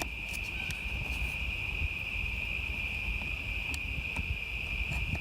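A steady, high-pitched insect chorus, with a few faint, light clicks and taps of handling as the heater wires are plugged into the new mirror glass.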